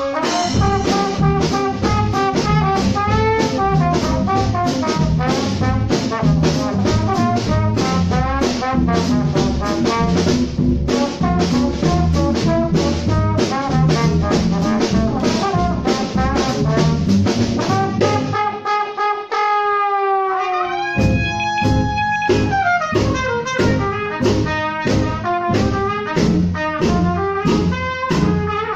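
Small traditional jazz band swinging, trombone and trumpet out front over guitar, piano, double bass and drums. About two-thirds of the way through, the rhythm section stops for about three seconds while the horns play falling, sliding phrases, then the full band comes back in.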